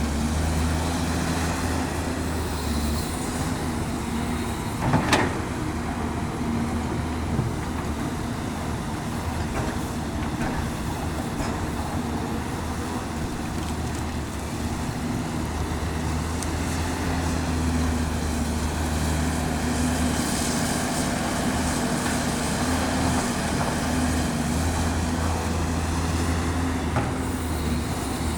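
Caterpillar 329D L hydraulic excavator's diesel engine running under load while digging and loading soil, its drone swelling and easing in cycles every several seconds. A sharp knock about five seconds in.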